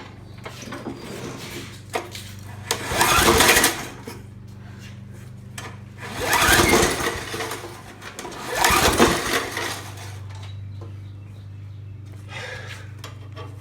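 Briggs & Stratton Classic 3.75 hp mower engine being pull-started three times: each pull is a brief whirr of the recoil starter turning the engine over, with no firing and no pop even with carb spray in the cylinder.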